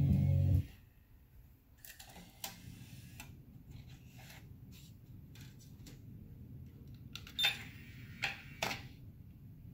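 Music from the Eclipse CD3100 car CD receiver cuts off just after the start. A series of sharp mechanical clicks and clunks follows as the head unit's faceplate is opened over the disc slot and closed again, over a faint low hum, with the loudest clunks near the end.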